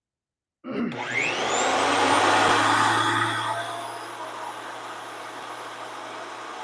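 A VEVOR 13-inch benchtop thickness planer switched on. The motor and cutterhead spin up with a rising whine, loudest for the first couple of seconds, then settle into a steady running whir.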